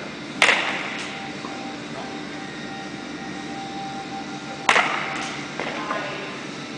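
Baseball bat striking soft-tossed balls: two sharp cracks about four seconds apart, each trailing off briefly, with a few lighter knocks after the second.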